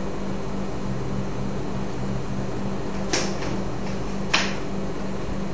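Steady low electrical hum, with two short sharp clicks about a second apart past the middle.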